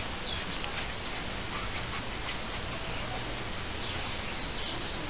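Steady background hiss, with faint bird chirps now and then.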